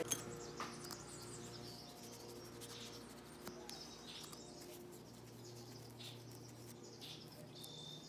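Quiet hand-handling sounds: a sharp click near the start and a few more later as the small clear plastic piece and the doorbell are handled and wiped with a cloth, with scattered short high chirps over a faint low hum.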